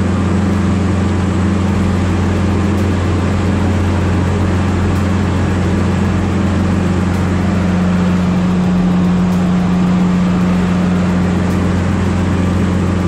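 Tigercat 718E wheeled feller buncher's diesel engine running steadily under load as it drives through deep floodwater, with water churning and splashing around its tyres. The engine note firms up slightly about eight seconds in, then eases back.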